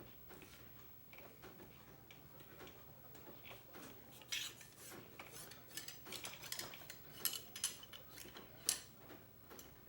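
Cleaning rod clicking and rubbing in a CVA Wolf muzzleloader's barrel as a cleaning patch is run through it. The first few seconds are quiet; from about the middle a run of light, sharp metallic clinks follows, the sharpest two near the end.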